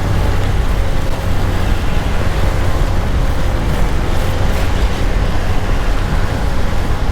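Benelli Panarea 125 scooter riding along, with a loud, steady wind rush over the rider's microphone and the engine running underneath as a faint wavering whine.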